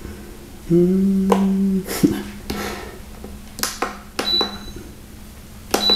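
Portable induction hot plate being switched on and set: a low buzzing tone about a second in that lasts about a second, then clicks of its control buttons with short high beeps, over a faint steady hum.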